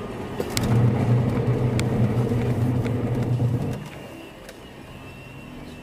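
A heavy truck's engine droning steadily alongside a moving car, loud for about three seconds and then falling away to road noise, with a few light clicks.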